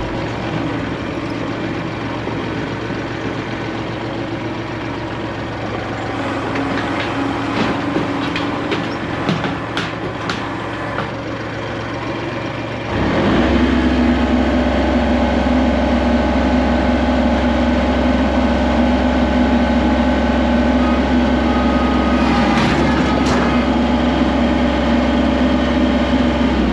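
Engine running steadily, with scattered knocks and rattles, then revving up about 13 seconds in and running louder and harder, as if under load, until the end.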